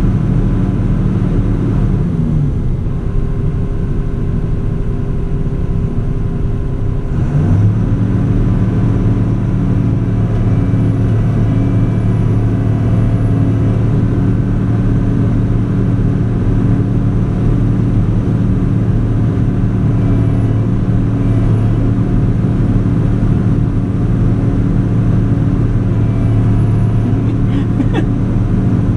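Excavator's diesel engine running steadily, heard from inside the operator's cab. The engine note sags about two seconds in and climbs back up at about seven and a half seconds as the controls are worked, then holds.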